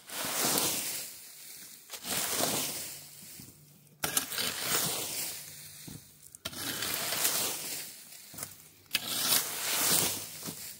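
A rake dragging through a pile of wet leaves, sticks and mud, scraping and rustling in repeated strokes, about one every two seconds.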